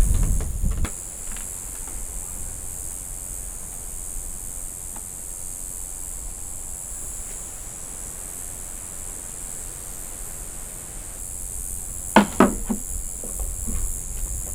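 Night insects chirping steadily at a high pitch. Wind buffets the microphone with a low rumble in the first second. A few sharp clicks and knocks come about twelve seconds in.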